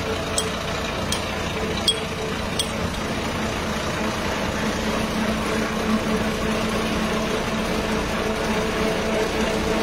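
Diesel engine of a truck-mounted water-well drilling rig idling steadily, with a few light ticks in the first three seconds.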